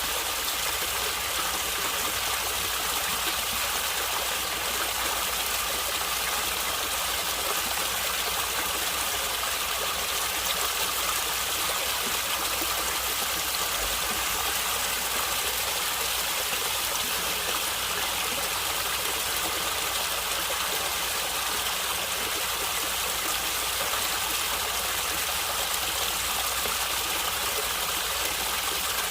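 A stream of water running and gurgling with a steady rush.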